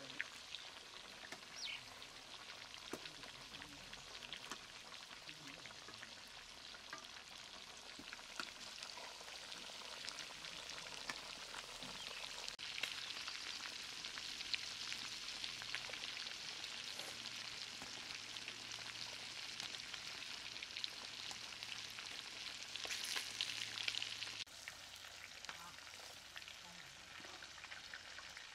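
A whole chicken sizzling as it deep-fries in hot oil in a wok, a steady hiss with scattered crackles. The sizzle is louder through the middle and drops suddenly about four seconds before the end.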